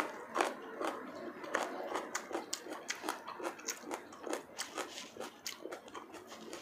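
Close-up mouth sounds of someone biting into a large green chili pepper and chewing it. A sharp bite comes at the very start, then steady crunchy chewing clicks, about three a second.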